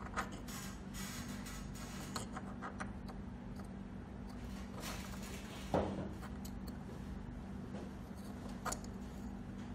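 Small plastic handling sounds from a Cat 6 RJ45 keystone jack being turned in the fingers against a wooden tabletop: light rubbing and a few sharp clicks and taps, the loudest about six seconds in.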